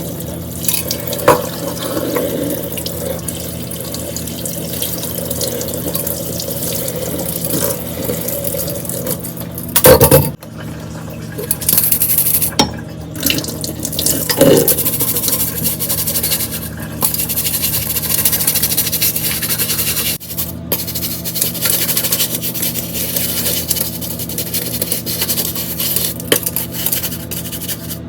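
Tap water running steadily into a kitchen sink while dishes are washed. There is a loud knock about ten seconds in and another bump a few seconds later.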